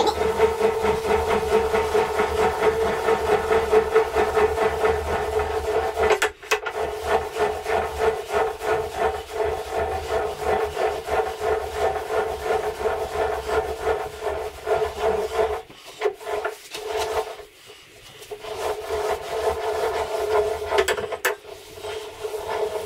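Bridgeport turret mill's knee being wound up by its hand crank, the elevating screw and gears giving a rhythmic mechanical grinding under the load of the heavy turret top. The cranking stops briefly about six seconds in, and again for a couple of seconds around sixteen seconds.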